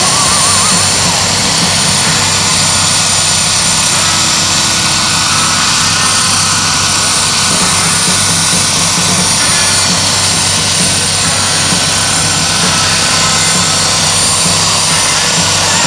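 Turbine engine of a radio-controlled scale model UH-1C Huey helicopter running steadily while it hovers: a thin, steady high whine over a lower, even drone.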